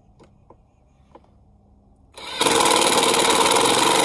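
Cordless Ryobi impact driver hammering a mounting bolt tight from beneath a toolbox, its nut held by a wrench inside. A few faint clicks come first; the loud, rapid hammering starts about halfway through.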